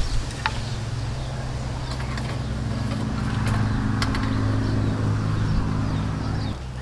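Steady low engine hum that cuts off suddenly near the end, with a few light metallic clinks as a wire grill rack is set on a clay charcoal stove.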